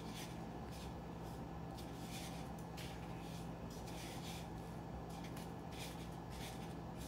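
A gloved hand pressing and turning a raw chicken strip in a bowl of dry breadcrumbs: a run of short, irregular scratchy rustles, over a steady low hum.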